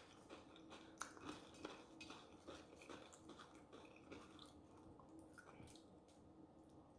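Faint chewing of food close to the microphone: soft, irregular wet mouth clicks, busier in the first few seconds and thinning out toward the end.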